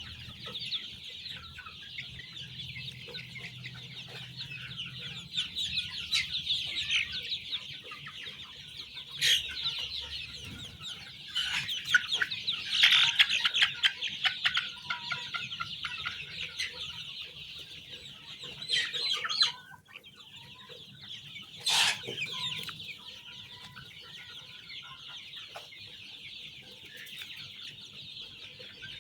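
A large brood of chicks peeping together in a dense, continuous high-pitched chorus, with a few louder single calls standing out here and there.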